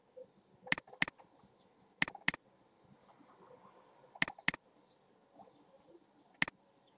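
Computer mouse button clicked in three quick double-clicks and then once more, each a sharp, crisp click. These are double-clicks that open folders in a file manager.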